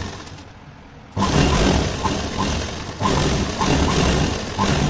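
Electric sewing machine stitching a lace strip onto a fabric sleeve, running in spurts: it starts about a second in, eases briefly partway through, then runs on.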